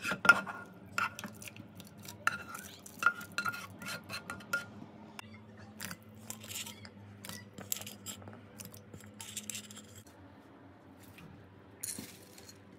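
Clinks, knocks and scrapes of utensils and ceramic plates as chopped vegetables are tipped into a multicooker pot of broth, over a faint steady low hum.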